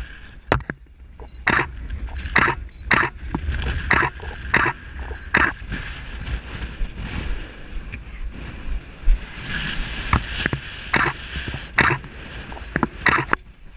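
Irregular scuffs and knocks of shoes on the Great Pyramid's limestone blocks as a climber steps down, about one every second. A steady low rumble of wind on the microphone runs under them.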